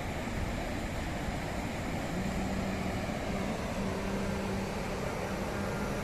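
Steady rush of a muddy river in flood, with a low hum that comes and goes from about two seconds in.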